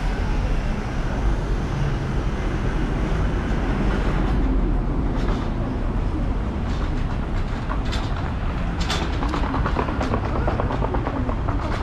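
Steady low rumble of a passing vehicle, with a run of sharp clicks and clatter starting about four seconds in.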